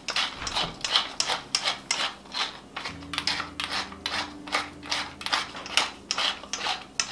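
Wooden pepper mill grinding black peppercorns: a quick, even run of rasping grinds, about three or four a second, as the mill is twisted back and forth.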